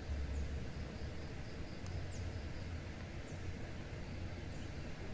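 Riverside ambience: a steady rush of noise with a gusting low rumble, a faint high pulsing insect call, and a few short high bird chirps spread through it.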